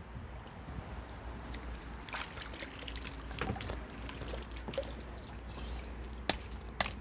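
Wind rumbling steadily on the microphone, with scattered light clicks and taps and two sharper clicks near the end.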